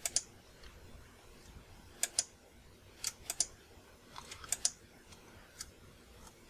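Computer keyboard keys and mouse buttons clicking, often in quick pairs about every second, as edge loops are picked with Shift-Alt-click.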